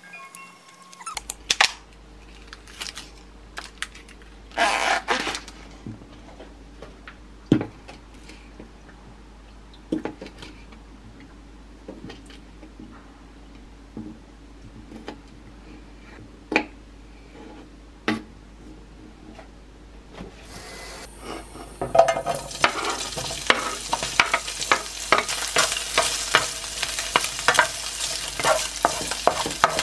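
Sharp knife taps against a countertop, one every second or two, as a sausage is sliced. From about 22 seconds in, diced sausage sizzles in a frying pan while a wooden spatula stirs and scrapes it, with many quick clicks over the frying.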